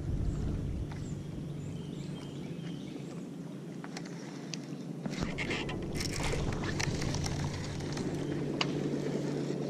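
Baitcasting rod and reel being worked from a boat: scattered sharp clicks and a short whirring, hissing stretch of reel and line about five to six seconds in, over a steady low hum.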